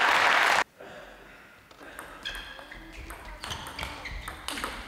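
Applause that cuts off suddenly less than a second in, then a table tennis ball being hit back and forth: a string of sharp clicks of ball on bats and table, roughly two a second.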